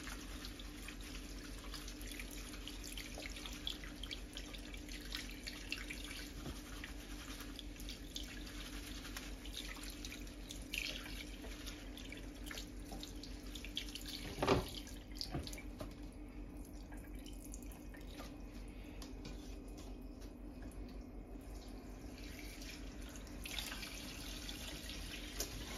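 Kitchen tap running into a stainless steel sink as a bunch of fresh thyme is rinsed under it, with small clicks of handling and one sharp knock about halfway through.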